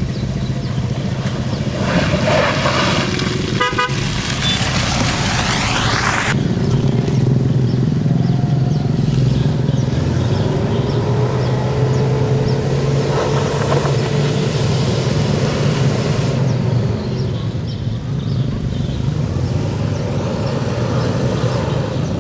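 Car engine revving hard as a stuck car's wheels spin in deep mud, with a short horn toot about four seconds in. The engine note rises and holds for a few seconds near the middle.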